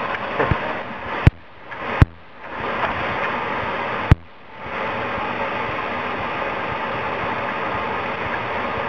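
Steady hiss from a saucepan of rocket-candy mixture (potassium nitrate, sugar and glucose syrup in water) heating and starting to bubble on a gas hob. Three sharp clicks break the hiss, about a second in, two seconds in and four seconds in, and the sound dips briefly after the last two.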